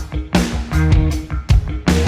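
Rock music, instrumental: a bass guitar riff in sustained low notes, punctuated by sharp drum-kit hits.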